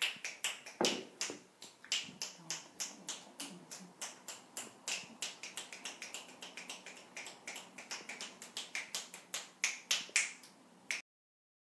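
Finger snapping beside a seated person's head, a quick, even run of snaps at about four to five a second, used as bilateral sound stimulation in EMDR therapy. It stops abruptly near the end.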